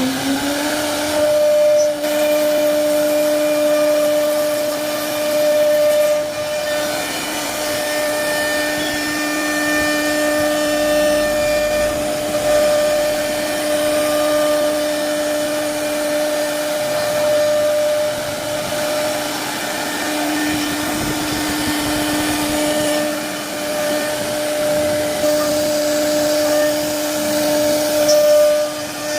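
CNC router spindle carving a wooden door panel: a steady high whine from the spinning spindle over the rough noise of the bit cutting wood.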